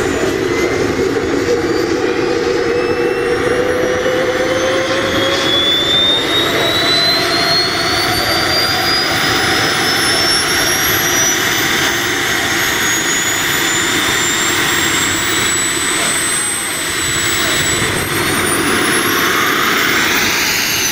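Model jet's B300F gas turbine running on the ground, a loud whine that climbs steadily in pitch as it spools up. Near the end the pitch rises and falls again briefly.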